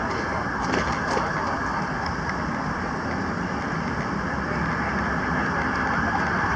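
Steady city street traffic noise, growing slightly louder near the end.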